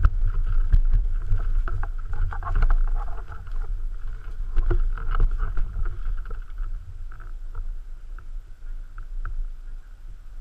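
Low rumble on the microphone with scattered clicks and knocks, fading toward the end.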